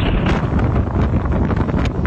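Strong typhoon wind buffeting the microphone: a loud, steady rush of noise heaviest in the low end, with small gusts flickering through it.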